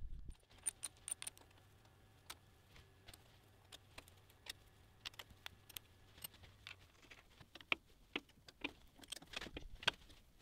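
Irregular small metallic clicks and ticks of hex keys and fittings being handled on a ball screw's steel bearing block, with a few louder clinks near the end.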